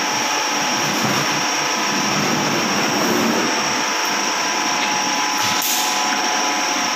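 Recycling-plant sorting machinery running: a steady, even mechanical hum and hiss with a faint constant whine over it.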